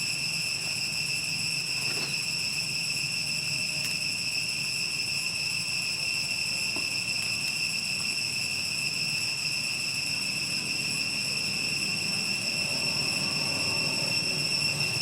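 Steady, high-pitched insect drone with a low hum beneath it.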